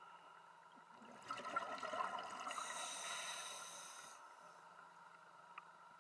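A scuba diver breathing out through the regulator: a burst of bubbles lasting about three seconds, starting about a second in, over a faint steady hum.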